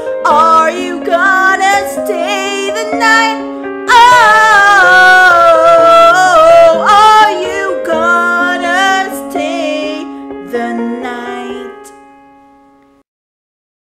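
A woman singing the closing lines of an acoustic pop ballad over sustained instrumental accompaniment, holding a long loud note about four seconds in. The music then fades out to silence near the end.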